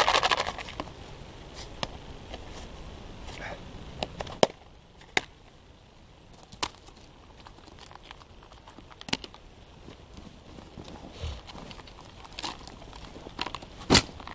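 Rustling and handling noises as gear is taken from a backpack, loudest in the first second, followed by about six separate sharp clicks and snaps spread through the rest, the loudest near the end.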